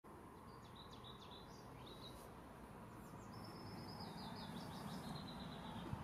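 Faint songbird singing over a low background rumble: a short phrase of chirps in the first two seconds, then a long run of quickly repeated notes that slowly fall in pitch.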